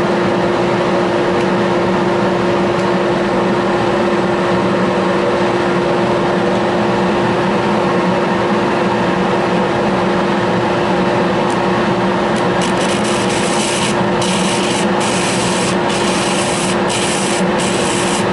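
Workshop dust collector running with a steady whine. In the last third, a series of short, sharp scrapes as a pipe stem is pressed against a spinning sanding disc to shape it.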